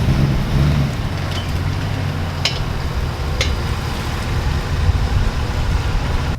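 Ford F-150 pickup engine running with a steady low rumble, with a few sharp clicks about a second apart in the middle.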